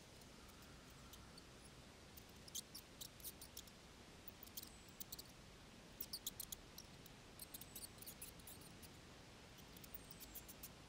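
Mice squeaking in the undergrowth: clusters of short, sharp high-pitched squeaks and ticks with a few brief falling notes, starting about two seconds in and coming in bursts over a very quiet background.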